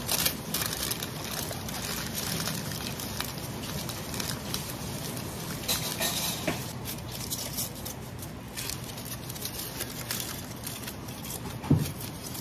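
Crinkling of black plastic gloves and wet squishing of skin as gloved hands rub down a raw whole pig, a steady run of small crackles. A short, louder thump about two-thirds of a second before the end.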